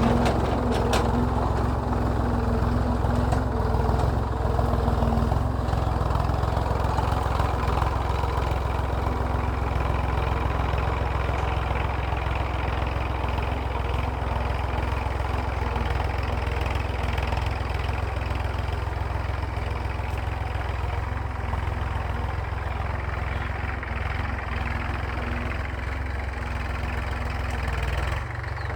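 Massey Ferguson tractor's diesel engine running steadily while ploughing, a deep, even drone that slowly gets a little quieter.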